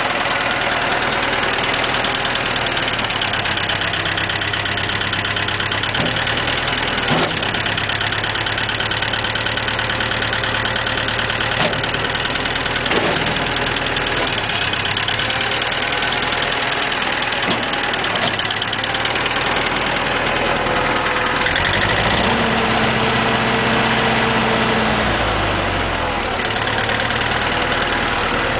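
1976 International 2412 backhoe's engine idling, with a few sharp clanks. About 22 seconds in, the engine speeds up, holds for about three seconds, and drops back to idle.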